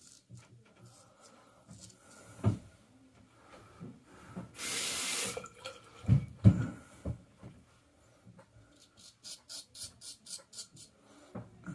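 A straight razor shaving lathered beard stubble, with quick, evenly spaced scraping strokes of about five a second near the end. Before that comes a short splash of running tap water of under a second, then a few knocks, the loudest about six seconds in.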